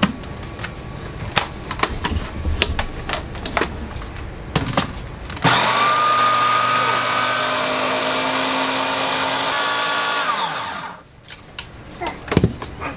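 Ninja food processor motor starting about five seconds in, running steadily with a high whine for about five seconds, then winding down. It is chopping steamed cauliflower, mozzarella and egg into pizza crust dough. Before it starts there are a few clicks and knocks as the lid and motor head are handled.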